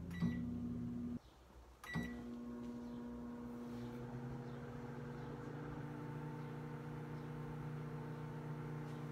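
Sanyo microwave oven running with a steady hum, heating a covered bowl of popcorn kernels before any popping has started. A click and a short beep sound just after the start, the sound drops out briefly a little over a second in, and returns with another click and beep at about two seconds.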